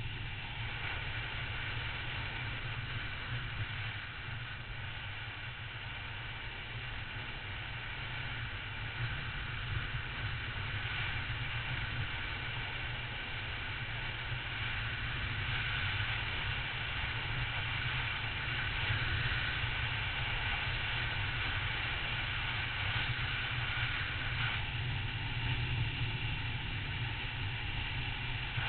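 Triumph Tiger motorcycle riding at road speed: steady engine note and wind rush on the microphone, growing gradually louder over the first half.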